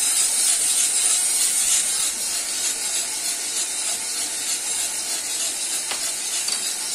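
Cormorant CR600 Electric drum coffee roaster running: coffee beans tumbling in the turning drum with a rough, rustling rattle over a steady hiss, in the drying stage of the roast just after turning point, the beans still green.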